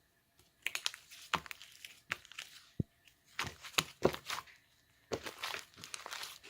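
Homemade slime being squeezed and stretched by hand, crackling and popping in four bursts of quick sharp clicks.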